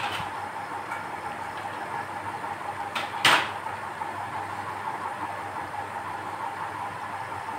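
Batter-coated mango pakoras deep-frying in hot oil, a steady sizzle with a few sharp pops, the loudest about three seconds in.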